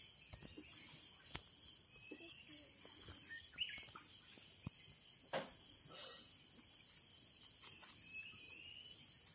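Faint steady chirring of crickets, with a few soft clicks and taps, the sharpest about five and a half seconds in.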